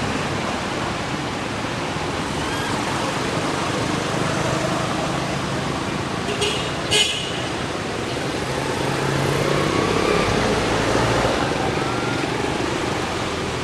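Steady outdoor background noise, with two short sharp sounds close together about halfway through, the second the loudest.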